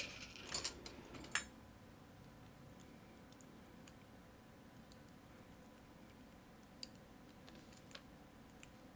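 Light metallic clicks of small lock-cylinder pins and springs being picked out with a tool, a quick cluster of clicks at first, then a faint, mostly quiet stretch with a couple of isolated ticks near the end.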